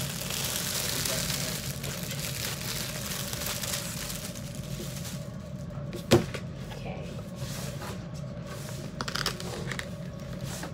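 Plastic cellophane wrapping crinkling as it is pulled off a paper gift bag, for the first few seconds. Then a single sharp knock about six seconds in, the loudest sound, and a few light handling clicks near the end.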